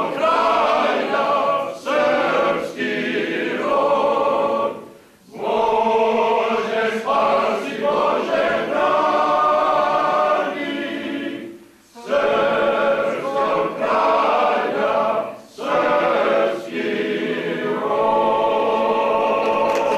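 Men's choir singing a cappella in Serbian, a sustained multi-part chorale in long phrases with short breaks between them.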